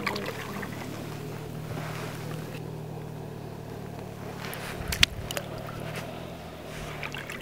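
Steady low hum of a motorboat engine running in the distance, with small splashes of water as hands work a pike in a plastic bucket. A sharper splash about five seconds in comes as the fish is let go into shallow river water.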